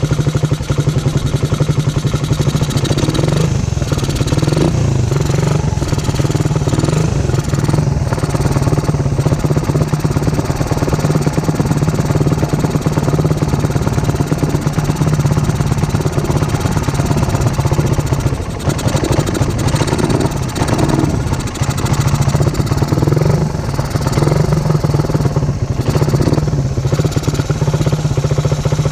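Suzuki Raider 150's single-cylinder four-stroke engine, fitted with a Koso EVO 30mm carburetor, idling steadily while the carburetor's adjusting screw is turned to find the idle. The carb is not yet in perfect tune, and the idle dips slightly a couple of times about two-thirds of the way through.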